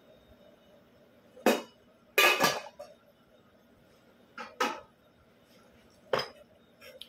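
A metal cooking pot and dishes being handled and set down: four separate clanks and clatters, the loudest a longer rattle about two seconds in.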